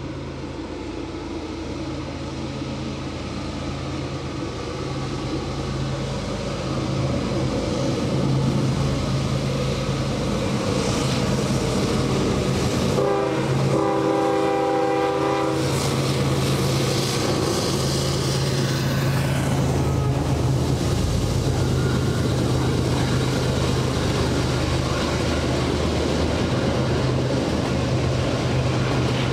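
Norfolk Southern freight train's diesel locomotives running as they come out of a tunnel and draw near, growing louder over the first several seconds. The horn sounds once near the middle for about two and a half seconds, and then the empty intermodal well cars roll past steadily.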